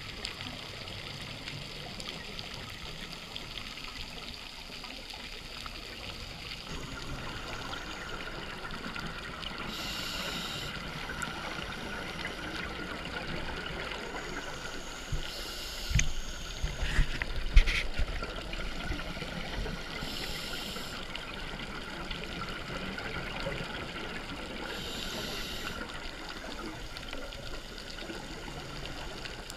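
Underwater sound of a scuba diver breathing: a steady hiss, broken about every five seconds by a rush of exhaled bubbles from the regulator, lasting about a second each. A few loud knocks come about halfway through.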